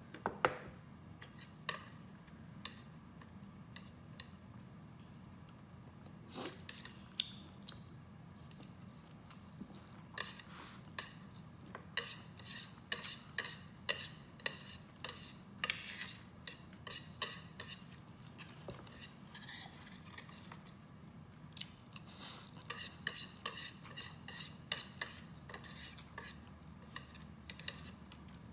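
Chopsticks and a metal spoon tapping and scraping on a metal baking tray, gathering the last noodles and chili flakes. After a knock at the start, the taps come sparsely for several seconds, then in quick clusters from about ten seconds in.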